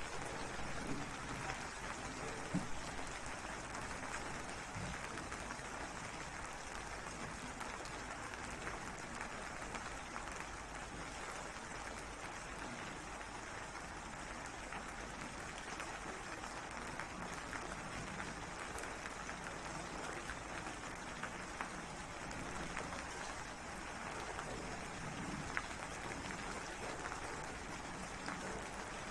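Steady rain falling, an even hiss dotted with scattered sharper drop ticks.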